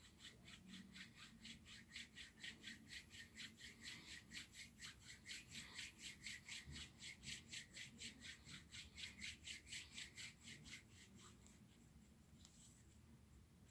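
Hands rubbing lotion between the palms: a faint, rhythmic rubbing at about four strokes a second that stops about eleven seconds in.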